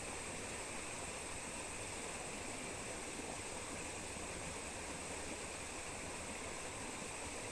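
Steady rush of a waterfall and its stream, an even unbroken water noise.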